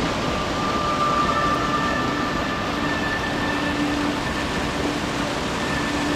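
Water rushing steadily over a low stone weir in a fast, shallow river: a dense, even rush with no breaks.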